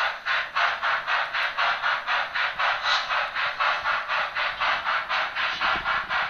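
Märklin 39243 HO model steam locomotive's sound decoder playing steam chuffs through its small onboard speaker while the engine runs. The chuffs come in an even rhythm of about four a second.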